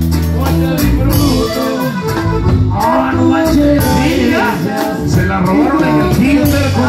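Norteño-style band music with accordion, a steady bass line, drums and a singing voice.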